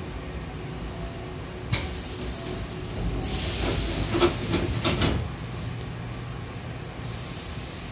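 Hankyu train's double sliding passenger door closing, with hisses of air from its door engine. A burst of hiss comes about two seconds in. A louder hiss with clunks follows as the two panels slide together, ending in a thud about five seconds in. Shorter hisses come after it, one with a falling whistle near the end.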